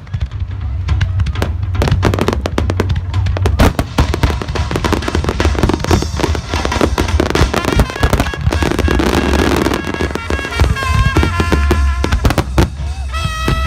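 Aerial fireworks bursting in rapid succession, with crackling and low booms, over music; the music's sustained notes come through more clearly from about six seconds in.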